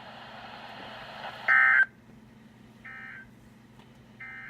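Emergency Alert System end-of-message signal: three short bursts of SAME digital data tones, each about a third of a second long and roughly a second and a half apart, the first much louder than the other two. A steady radio hiss comes before them.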